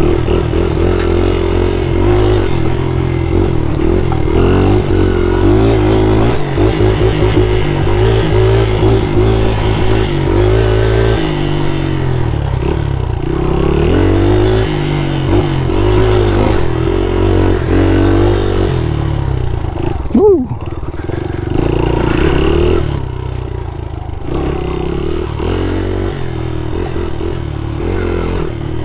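Honda XR80's small single-cylinder four-stroke engine, revving up and down as the dirt bike is ridden hard, its pitch rising and falling with throttle and gear changes. A single sudden loud thump about twenty seconds in.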